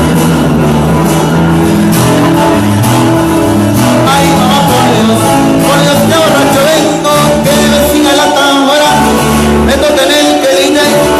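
A band playing music: guitar over a steady bass line, with a bending lead melody.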